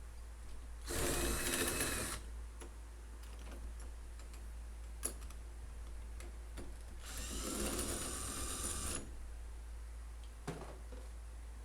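Cordless drill backing out the two screws of a door latch plate: two short whirring runs, the second about six seconds after the first, with a couple of light clicks in between.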